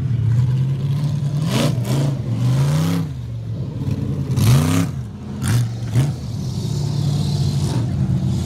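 Tube-frame off-road buggy's engine revving hard under throttle, its pitch climbing and dropping again several times as it is driven across a dirt course. Several short noisy bursts break in over the engine during the first half.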